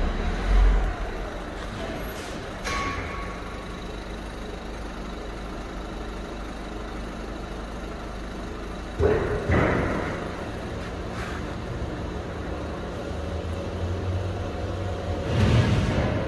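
Brake roller tester running a car's wheels: a steady machine hum, with two louder surges about nine and fifteen seconds in.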